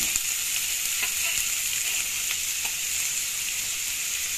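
Chopped onions sizzling in hot vegetable oil in a pan: a steady frying hiss with a few faint ticks.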